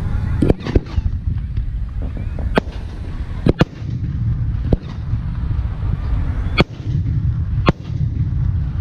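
Fireworks aerial shells going off: about nine sharp bangs at irregular intervals, two of them close together near the middle, over a steady low rumble.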